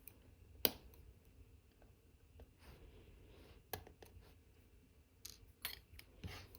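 Small sharp metal clicks and taps of watchmaker's tools handling parts of a watch movement, about six in all: one loudest click about half a second in, another near the middle, and a quick cluster near the end, with faint handling rustle between.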